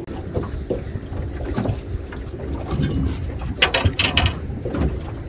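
Wind on the microphone and water lapping at a small aluminium boat's hull, making a steady low rumble, with a short run of sharp knocks and clatter about three and a half to four seconds in.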